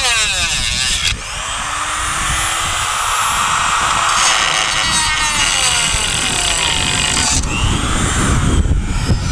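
Electric drill run in bursts: the motor whine rises as it speeds up, cuts off about a second in, then starts again. Later its pitch sags as if under load, and it stops near the end amid a rough grinding noise.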